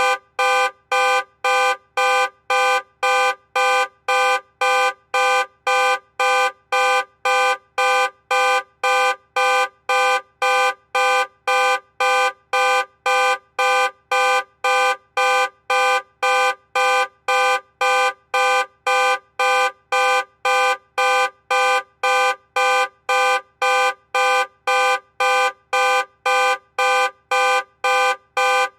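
Car security alarm sounding the horn in short, evenly spaced honks, about two a second, repeating without a break.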